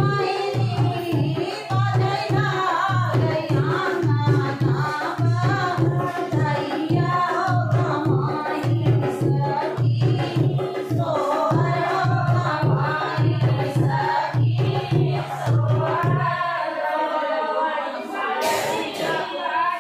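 Women singing a sohar folk song together, accompanied by a dholak hand drum beating a steady rhythm. The drum stops near the end while the singing carries on.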